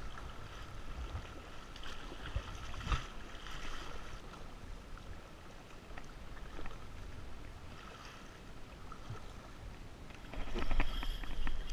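Water splashing and lapping around a kayak as it is paddled on the sea, with a few knocks. Near the end a louder, rapid clicking starts.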